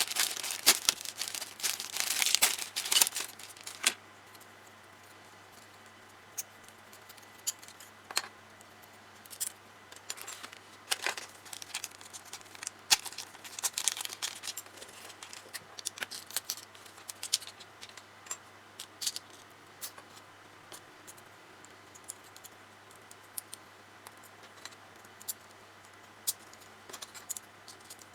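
Plastic packaging crinkling for the first few seconds, then scattered light clicks and ticks of small plastic Mini 4WD kit parts being handled.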